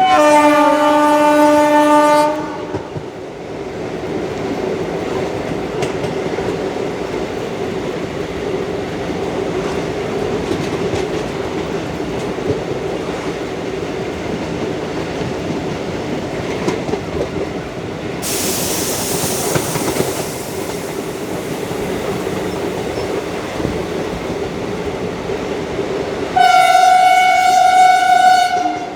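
WAG5 electric locomotive's air horn sounding a lower-pitched blast for about two seconds at the start and a higher-pitched blast near the end. In between, the ICF coaches run steadily over the rails with a clickety-clack and a brief hiss about eighteen seconds in.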